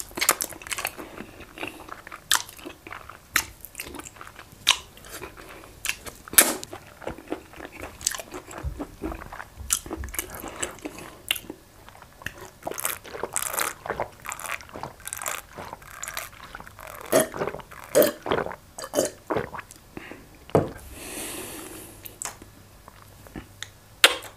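Close-miked wet mouth sounds: lip smacks and sucking clicks from licking food off fingers, with sips and swallows from a glass in the middle. Near the end there is a drawn-out breathy exhale, then one sharp smack.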